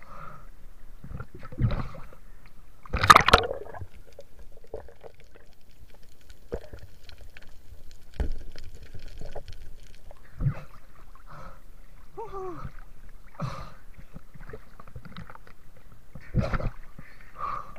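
Water splashing and sloshing around a camera held at the sea surface by a swimming spearfisher, with irregular splashes and a louder splash about three seconds in. A brief voiced hum is heard near twelve seconds.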